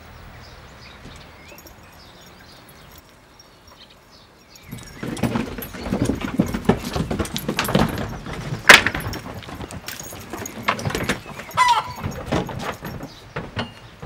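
Sheep hooves clattering on the ramp and floor of a horse trailer as the flock is loaded: a rapid, uneven run of knocks that starts about four and a half seconds in, with one sharp, loud knock a little past the middle.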